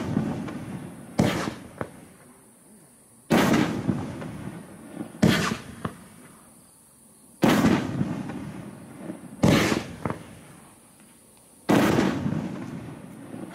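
Aerial shells from a nine-shot, 500-gram consumer firework cake bursting in the sky, each a sharp bang that trails off in a long rumble. There are six bangs, about two seconds apart, with a few fainter pops after some of them.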